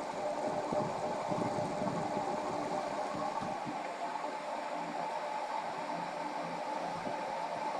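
KDK ceiling fan running steadily, a continuous whirring drone with a rush of moving air; a low rumble underneath fades out about four seconds in.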